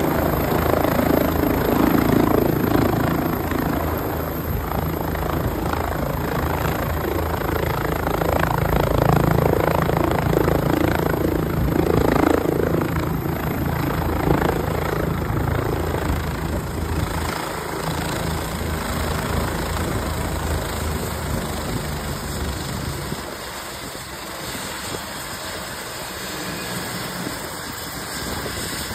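Bell 429 twin-turbine helicopter hovering low and settling onto a helipad to land: steady rotor and turbine noise over a deep drone. The low drone falls away and the whole sound gets quieter about three-quarters of the way through, after touchdown.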